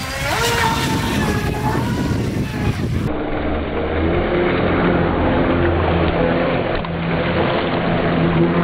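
Wltoys WL916 brushless RC speedboat running fast across the water, its motor whine rising and falling with the throttle over the rush of spray. About three seconds in the sound changes abruptly to a steadier motor hum and water rush as the boat sweeps close by in a splashing turn.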